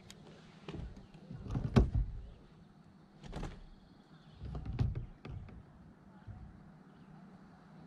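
Hollow clunks and knocks of gear being handled in a plastic fishing kayak: several separate thumps, the loudest about two seconds in and another near five seconds.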